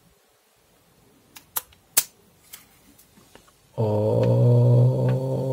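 Plastic protective film being peeled off a smartphone's back, a few sharp crackles and clicks. Near the end, a loud, steady low hum starts and holds.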